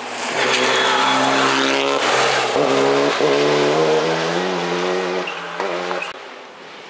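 Rally car passing at speed on a gravel stage: its engine note climbs and falls back several times as it shifts through the gears, over a hiss of tyres on gravel, then fades.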